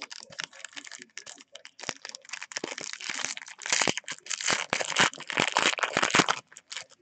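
Foil wrapper of a Panini football card pack being torn open and crinkled by hand: a dense run of crackles that gets louder about halfway through and stops shortly before the end.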